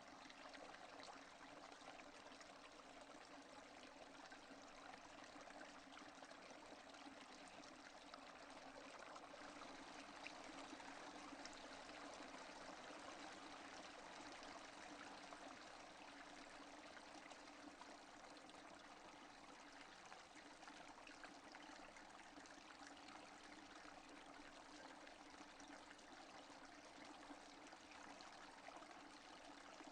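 Steady, faint rain falling without thunder, an even hiss that swells slightly partway through.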